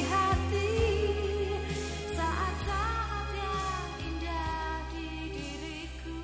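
Indonesian pop ballad: a woman singing a sustained, gliding melody over band accompaniment, slowly getting quieter as the song draws to its close.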